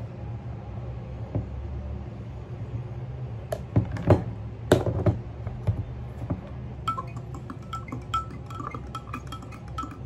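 A clear plastic container knocks and clicks a few times as its lid is pressed shut. Then, from about seven seconds in, a metal spoon stirs a drink in a glass: a quick run of light clinks with a ringing tone, over a steady low hum.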